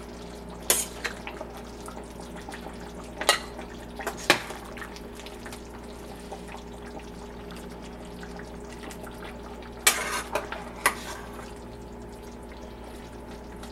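Metal ladle knocking and scraping against a stainless steel pot while dishing out chicken stew, with liquid dripping and pouring. A few sharp clinks come about a second in, around three to four seconds in, and in a cluster about ten seconds in, over a steady hum.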